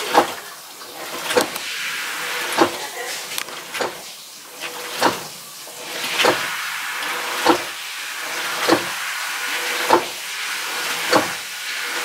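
Hitachi BeatWash top-loading washing machine running with a loud mechanical knock repeating about every 1.2 seconds over a steady noisy churning. It is the abnormal noise of a failed clutch, which the owner puts down to overloading with laundry.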